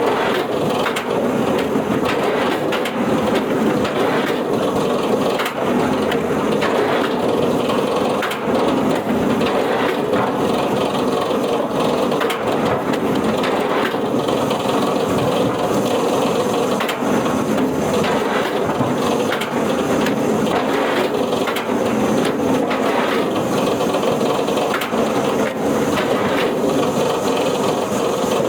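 A heavy wood-processing machine running steadily while wood is crushed and splintered, with frequent sharp cracks and knocks over the machine's drone.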